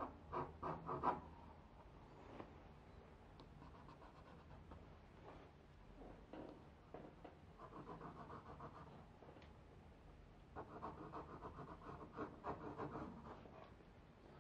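Graphite pencil scratching across drawing paper in quick back-and-forth strokes: a short burst of strokes at the start, a few scattered single strokes, then longer runs of rapid strokes in the second half.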